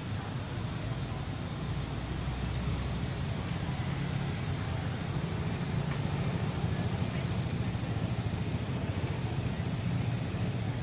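Steady low rumble under an even hiss, with no distinct sound event standing out.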